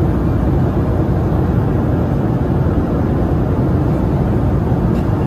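Boeing 737 engines and airflow heard inside the passenger cabin in flight: a loud, steady, low drone.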